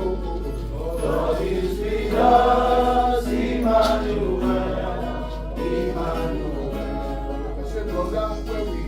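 Gospel choir singing a slow worship song, the voices holding long notes.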